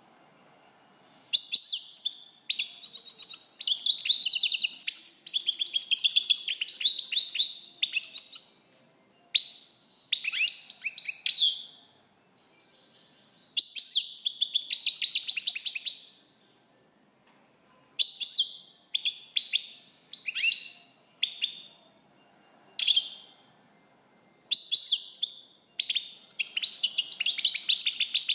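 European goldfinch singing: bursts of fast, high twittering song broken by short pauses, with a run of single short notes in the middle before the twittering picks up again near the end.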